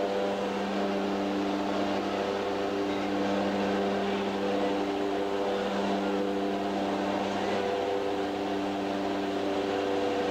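Aircraft engine and propeller drone inside the cabin of a skydiving jump plane, a steady hum with a faint beating as some of its tones fade and return.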